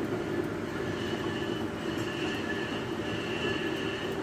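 Milling machine running: a steady mechanical drone with a thin, high whine over it.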